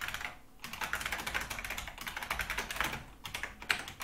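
Fast typing on a computer keyboard: a rapid run of key clicks, with a short pause about half a second in.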